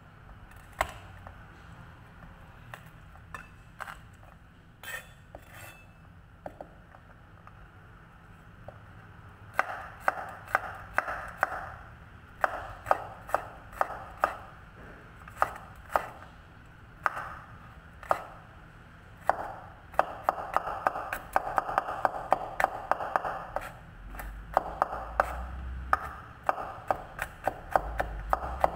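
Rectangular cleaver chopping garlic cloves on a wooden cutting board. A few scattered knocks at first, then quick runs of chopping start about a third of the way in and come fastest in the last third.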